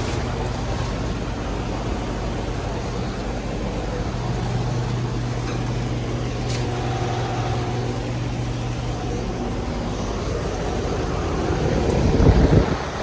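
Outdoor air conditioner condensing unit running: a steady compressor hum under the fan's noise. Near the end, wind buffets the microphone.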